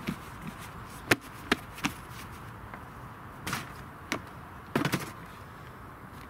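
Irregular sharp knocks and taps from a black plastic pot being knocked and lifted off its mound of compost, with a quick cluster of knocks near the end.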